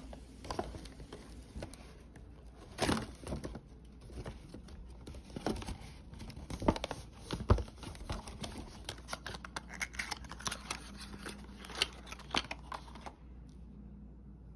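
Paper gift bag and cardboard perfume box being handled and opened: paper rustling and crinkling with many sharp clicks and taps, stopping shortly before the end.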